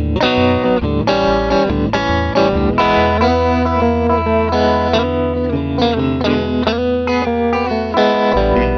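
Guitar-led instrumental rock music playing a quick run of notes, with a low bass note held for several seconds in the middle.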